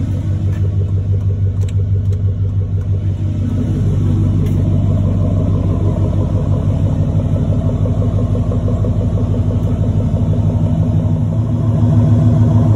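Chevy Silverado pickup's engine idling steadily, a little louder near the end.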